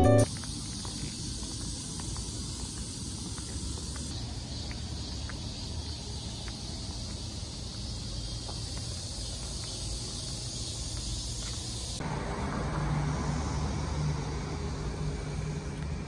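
Steady outdoor road ambience: a continuous hum of passing traffic. About twelve seconds in, the sound shifts and a low steady engine-like hum comes in.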